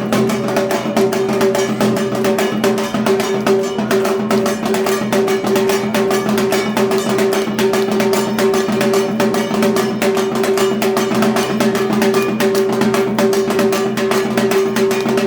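Dhak drums played in a fast, unbroken rhythm for dhunuchi naach, with a steady ringing tone sounding beneath the strokes.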